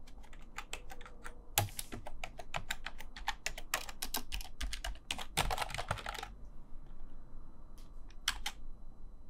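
Computer keyboard keys clacking under typing: a dense run of quick keystrokes for about six seconds, then only a few scattered key presses.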